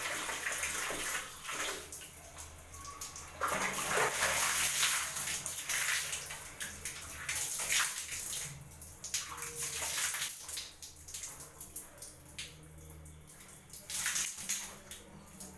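Water poured from a plastic mug over the face and hair, splashing down in a series of pours with short gaps between them.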